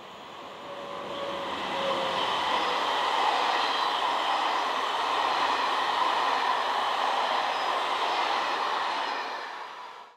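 Electric-hauled passenger train of Corail coaches passing close by at speed: steady rush of wheels on rail that builds over the first two seconds, holds, then eases off and cuts off suddenly near the end.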